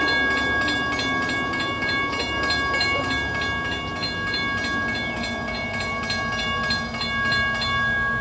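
Railroad grade-crossing bell ringing fast and evenly, about four strokes a second, over a low rumble.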